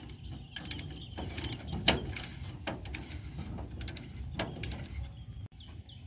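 Heavy steel tie-down chain clinking and clanking against a bulldozer's steel track as it is handled and secured, with a sharp metal clank about two seconds in and another near four and a half seconds. A low steady rumble runs underneath.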